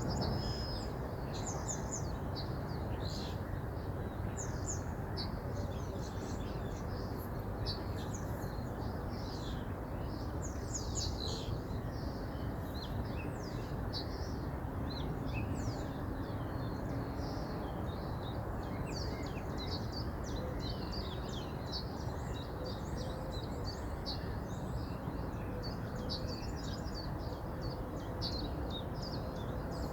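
Steady rush of a flowing river, with many small birds chirping and singing over it in quick, overlapping calls.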